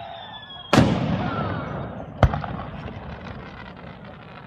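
Aerial fireworks shells bursting right overhead. A loud bang comes about three-quarters of a second in and its echo fades slowly; a sharper single crack follows about a second and a half later.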